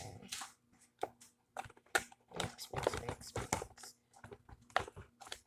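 Wooden spoon stirring a mix of Elmer's glue, Sta-Flo liquid starch and shaving cream as it thickens into slime, giving irregular short clicks and knocks.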